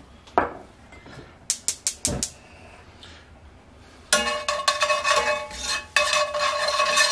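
Metal tongs clinking and scraping against an enamelled pan while stirring minced garlic in olive oil. It starts with a few sharp taps, then from about four seconds in there is rapid clinking with a metallic ringing.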